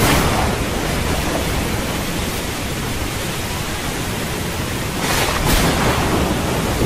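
Steady rushing noise with no clear pitch, swelling at the start and again near the end.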